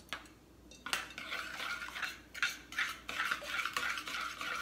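A spoon stirring a runny melted chocolate peanut butter mixture in a glass measuring jug, scraping and clinking against the glass in quick, irregular strokes that start about a second in.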